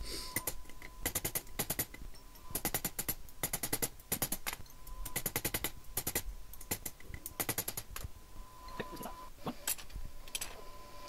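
Hammer striking a cut piece of steel horseshoe on a steel anvil, quick strokes in short runs, pounding it into shape. Near the end the strikes thin out to a few scattered knocks.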